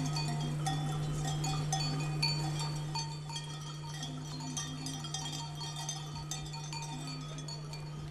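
Small bells on a grazing flock of sheep clinking and tinkling irregularly, over a steady low hum.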